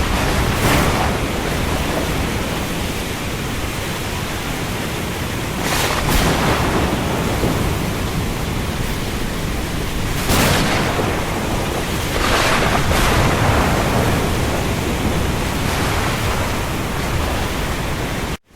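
Steady rain over a rough sea, a dense hiss, with waves surging and breaking in several louder swells. The sound drops out for an instant near the end.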